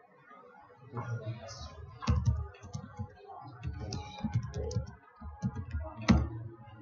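Computer keyboard typing: an irregular run of keystrokes with low desk thuds, the loudest about two seconds in and again near the end.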